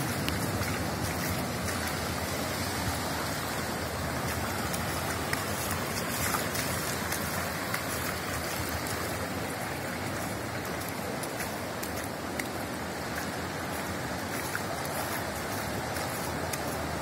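Steady rushing and splashing of muddy floodwater running across a street.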